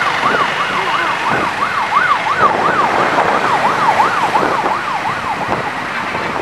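A siren yelping rapidly up and down in pitch, about three sweeps a second, over a steady rushing background noise; the siren fades out about five and a half seconds in.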